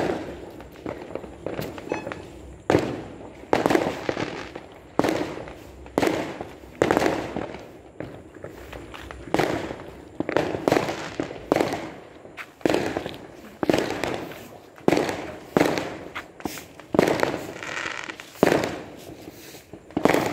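Aerial fireworks going off in a steady series, a sharp bang about once a second, each dying away quickly.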